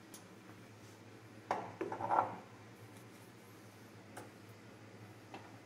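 Brownells BRN Proto AR-15 upper receiver and barrel being handled and turned over on a rubber bench mat: a short cluster of knocks and rattles about one and a half seconds in, then a couple of faint clicks, over a low steady hum.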